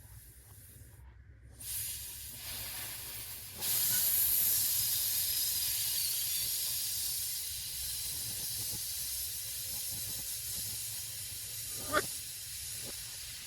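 A steady hissing rush that comes in about two seconds in, grows louder about a second and a half later, then slowly eases off, with one sharp click near the end.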